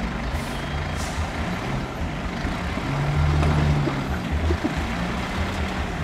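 Diesel engine of a multi-axle tipper truck running while its hydraulic hoist raises the loaded bed to dump dirt, the engine working harder and louder for about a second around the middle. Brief hissing comes near the start.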